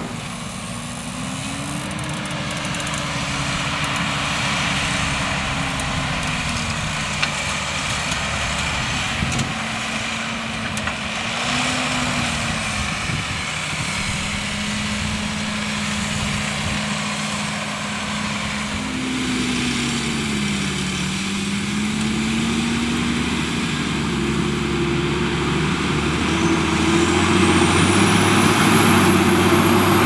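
New Holland T8.360's FPT Cursor 9 six-cylinder diesel (8.7 litres) working under load while the tractor pulls a three-furrow reversible plough. The engine note dips and recovers several times. Near the end it grows louder and a high whine rises in pitch.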